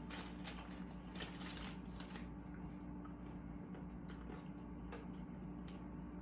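Faint crinkling and small clicks of a plastic crisp packet being handled, denser in the first couple of seconds, over a steady low hum.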